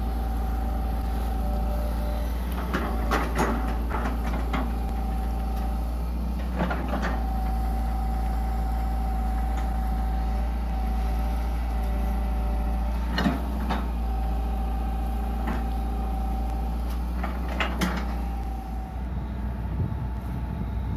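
Hitachi EX120 long-arm excavator's diesel engine running steadily under load, with a steady high whine. About five groups of short, sharp clanks break in as the bucket and arm work the ground.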